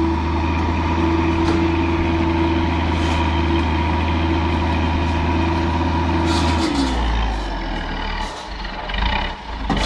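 A heavy engine, typical of a truck or forestry machine, running steadily at a constant pitch. About seven seconds in its pitch drops and the sound becomes uneven.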